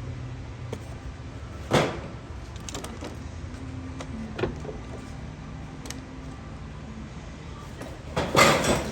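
A few sharp knocks and clunks of someone handling the vehicle: one about two seconds in, a smaller one midway, and a louder clattering thump near the end, over a steady low hum.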